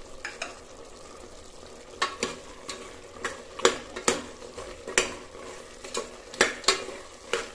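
Metal ladle stirring chilli powder and biryani masala into mutton in a pressure cooker pot, the meat sizzling in oil underneath. Sharp clinks and scrapes of the ladle against the pot begin about two seconds in, coming irregularly about twice a second.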